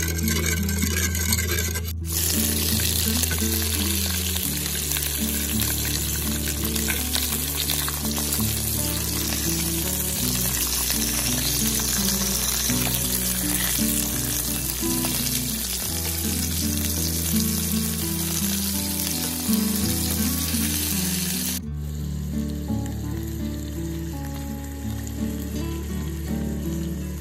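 Pork chops sizzling as they fry in oil in a pan, a dense steady crackle. It starts suddenly about two seconds in and drops away near the end, under background music.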